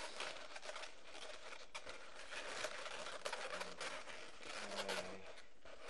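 Inflated latex 260 twisting balloons rubbing against each other and the hands as they are twisted and positioned: a steady crinkly rustle with a couple of brief squeaks about three and a half and five seconds in.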